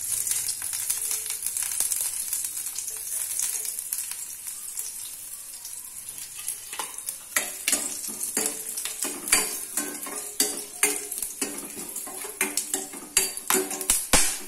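Whole spices sizzling in hot oil in a stainless-steel kadai, the hiss easing off over the first few seconds. From about seven seconds in, a steel spoon stirs and scrapes around the pan with many sharp metallic clicks and taps.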